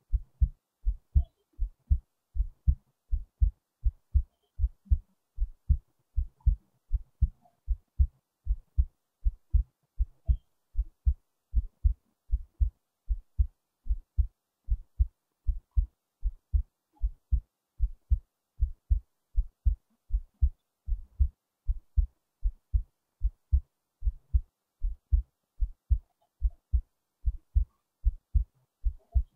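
Human heartbeat, low and regular: a steady run of paired thumps, the lub-dub of each beat.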